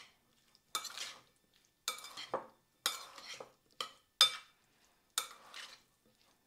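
A utensil scraping and clinking against a bowl in a dozen or so short strokes, roughly one every half second to a second, as diced feta and tomatoes are mixed through an oily onion-and-herb marinade.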